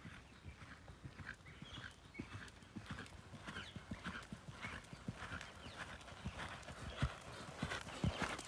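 Horse's hooves striking sand arena footing in a steady rhythm of dull thuds, getting louder near the end as the horse passes close by.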